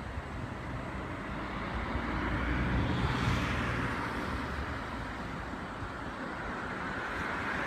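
Surf breaking on a beach: a steady wash of noise that swells as a wave breaks about three seconds in, then builds again near the end.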